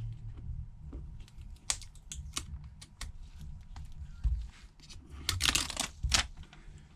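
Scattered small clicks and taps as a replacement phone screen and small parts are picked up and handled on a workbench, with a short rustle about five and a half seconds in.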